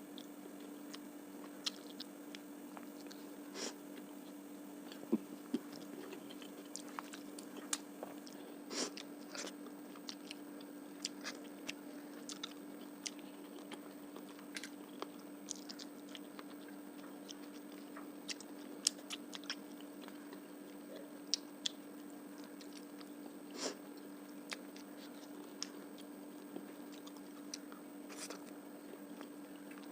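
A person chewing and biting a meal of fish curry, rice and onion, with many short, irregular clicks and crunches. A steady low hum runs underneath.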